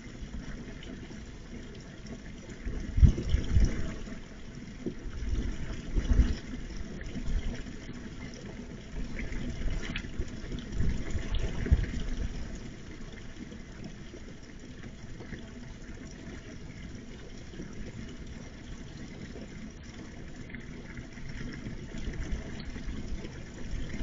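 Outdoor night ambience through a security camera's microphone: a low rumbling noise that swells several times, loudest about three and six seconds in. A vehicle passes on the street around ten to twelve seconds in.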